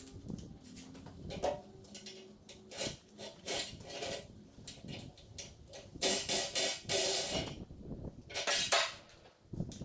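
Irregular clanking and scraping of metal parts, with longer, harsher scraping stretches about six seconds in and again near the end.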